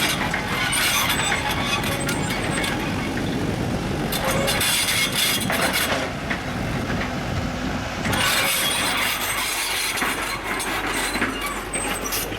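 Bulldozer at work: its engine running steadily, with three bouts of louder clanking and scraping from the tracks and blade.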